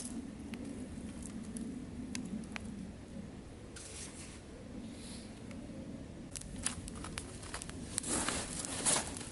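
Dry twigs rustling and clicking as they are laid on a campfire lay of split sticks and wood shavings, with scattered sharp snaps that get much denser in the last few seconds.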